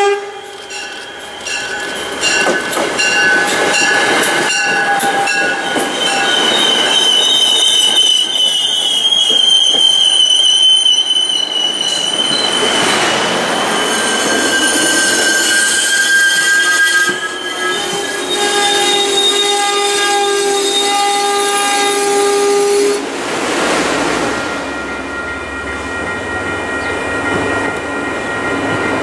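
MBTA commuter train: a short horn blast at the start, then its wheels and brakes squeal steadily in several high tones as the coaches roll past the platform. The squeal dies away about 23 seconds in, leaving a quieter rolling rumble.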